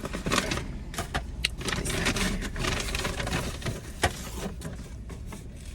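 Takeout food packaging being handled: plastic containers and a bag rustling and clicking, with a sharp knock about four seconds in, over a steady low hum.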